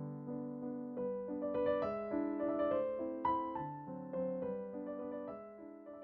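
Soft background piano music, a gentle melody of sustained notes over a low accompaniment.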